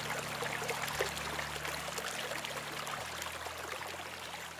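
Water running and splashing steadily, with low sustained tones underneath that shift pitch about a second in and again about three seconds in; the whole starts to fade near the end.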